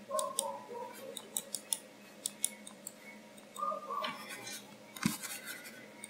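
Scattered sharp clicks of computer keys and a mouse, several in quick succession in the first two and a half seconds, then a soft thump about five seconds in.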